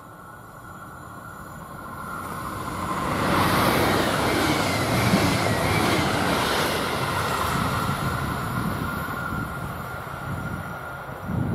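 DB class 445 double-deck electric multiple unit approaching and passing close by at speed. The rush of wheels on rail grows to its loudest about four to six seconds in and then slowly fades as the train moves away.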